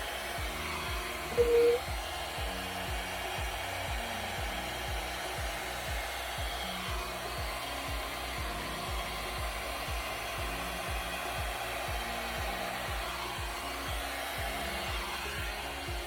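Steady air-blowing noise like a hair dryer, over soft background music with a regular low beat. A short tone sounds once, about a second and a half in.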